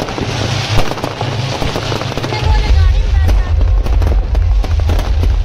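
Loud festival music with a heavy bass beat that grows stronger about two and a half seconds in, over the rapid crackle of firecrackers and the voices of a large crowd.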